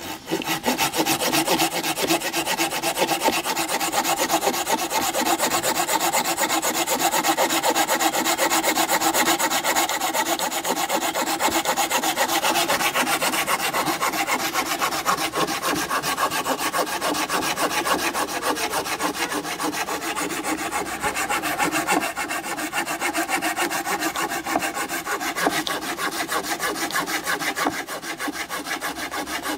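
A cheap hand saw cutting through a thick wooden log with continuous quick back-and-forth strokes, the teeth biting well into the wood.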